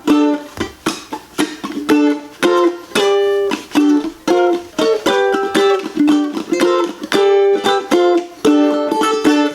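Ukulele strumming a rhythmic run of rock-style chords.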